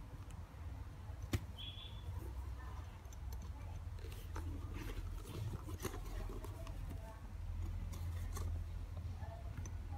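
Handling noise from gloved hands working a canvas-and-leather messenger bag and its zipper: light rustling and scattered small clicks, with one sharp click about a second in, over a low steady hum.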